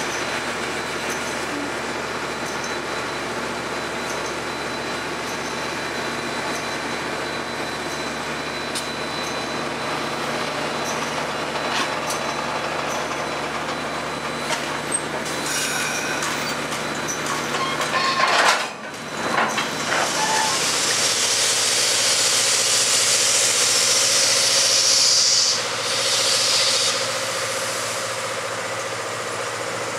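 Train sounds around a 1904 ALCO 2-8-0 steam locomotive: a steady low mechanical hum, then a loud hiss from the train lasting about four seconds, followed by a shorter hiss.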